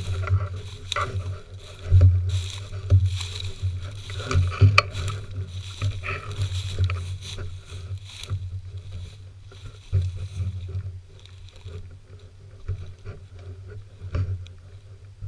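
Footsteps crunching and rustling through dry, matted grass and brush, irregular and uneven. A low rumble runs under them. Both ease off after about two-thirds of the way through.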